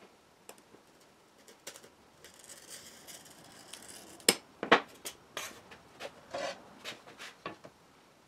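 A glass cutter's wheel scoring a pane of antique glass along a straightedge: a dry hiss lasting about two seconds, followed by a run of sharp clicks and knocks.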